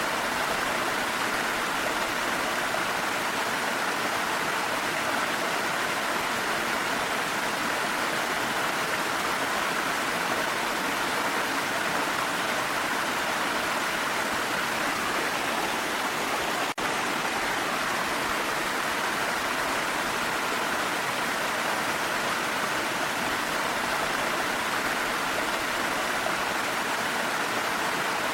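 Steady, unbroken rush of a waterfall's flowing water, an even hiss with no separate drops or splashes. It dips briefly about seventeen seconds in.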